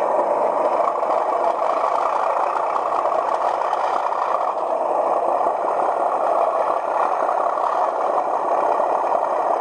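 Hornby TTS sound decoder playing a recorded Class 37 diesel engine running sound through the model's small roof-mounted speaker, steady and unbroken as the loco runs on DCC power.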